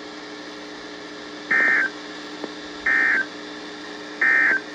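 Three short bursts of EAS/SAME digital data tones, a buzzy warble, about 1.4 seconds apart: the NOAA Weather Radio end-of-message (EOM) signal that closes the warning broadcast. A steady radio hiss and hum lies underneath.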